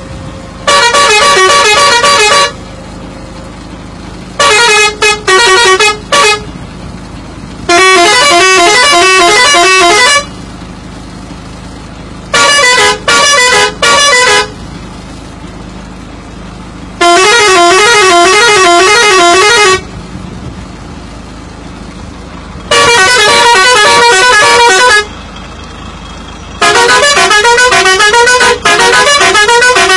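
Bus 'telolet' musical horn playing a string of loud multi-note melodies: about seven blasts, some broken into quick short toots, one with a fast warbling trill. A steady, much quieter background noise runs between the blasts.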